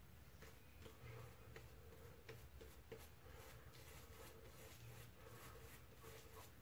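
Shaving brush working thick shaving-soap lather over the face: faint, soft, irregular crackling ticks.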